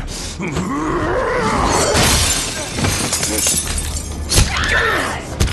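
Horror-film sound mix: a long, noisy crashing and shattering sound with a wavering, pitched vocal cry in its first half, and sharp hits about two seconds in, past four seconds and near the end, over the score.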